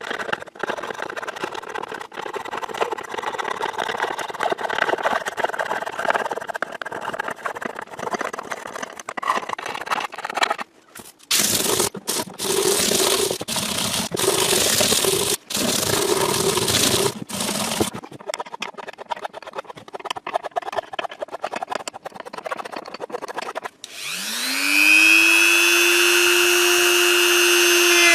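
Abrasive hand work on guitar frets, steady scratchy rubbing and filing strokes in several edited stretches, louder in the middle. Near the end a small power tool's motor spins up, rising in pitch to a steady whine.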